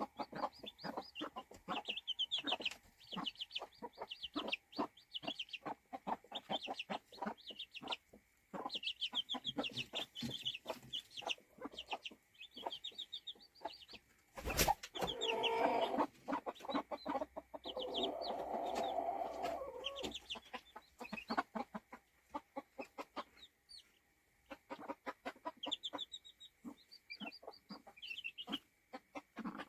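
Newly hatched chicks peeping in quick high-pitched runs, with a hen's low clucking beneath. A single sharp knock about halfway through.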